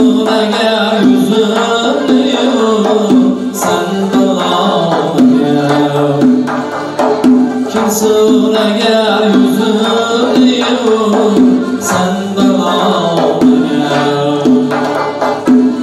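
Uzbek classical song (ashula) with a doira frame drum keeping the rhythm, accordion and long-necked lutes, and a man singing a ghazal. The drum's accented stroke lands about every four seconds.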